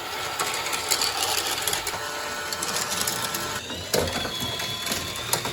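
Whirring of a small toy mechanism with scattered plastic clicks, a faint steady tone sounding for a while in the middle and a higher one near the end.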